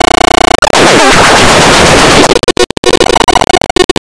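Loud, harsh distorted electronic noise with a few steady tones in it. It cuts in and out rapidly right at the start and again about two and a half seconds in.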